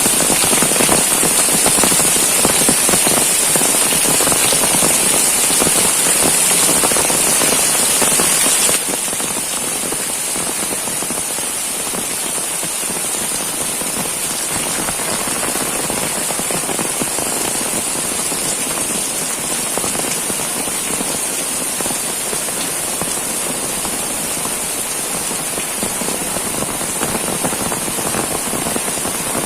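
Heavy rain pouring steadily, a dense patter of drops. About nine seconds in it drops suddenly to a slightly softer, less hissy level and carries on unchanged.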